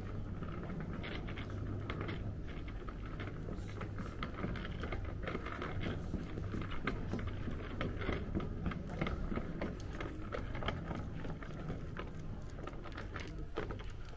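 Indoor ambience of an airport lounge: a steady low hum with scattered light clicks and clatter throughout.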